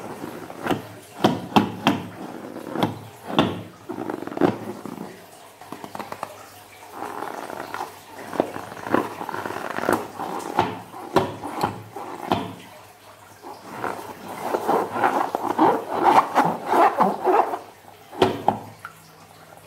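A rubber balloon filled with slime being squeezed and kneaded by hand, giving irregular wet squishing and rubbing sounds, busiest near the start and again in the last few seconds.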